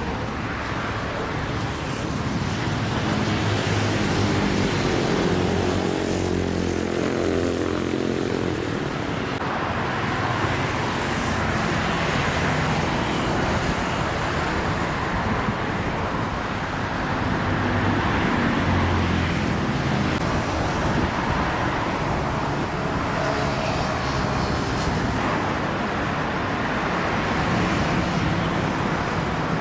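Steady road-traffic noise with vehicle engines running. A nearby engine is strongest a few seconds in.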